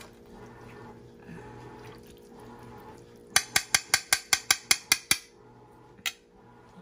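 Metal serving spoon tapping quickly against a plate, about a dozen sharp taps in an even run of some six a second, then one more tap a second later.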